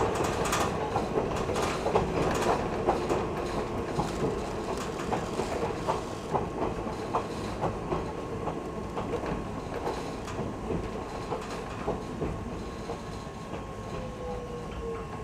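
Nagano Electric Railway 3500 series train running, heard inside the car: steady rumble with wheels clicking over rail joints, the running noise getting gradually quieter. Near the end a whine falls in pitch.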